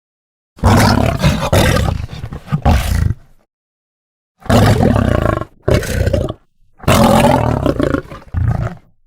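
Lion roaring: three loud roars of about two seconds each, each breaking off into a shorter second burst, with dead silence between them.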